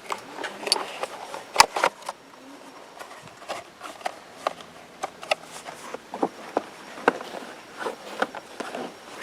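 Irregular sharp metallic clicks and knocks of .30-06 cartridges being loaded into a hunting rifle, with one loudest click about a second and a half in.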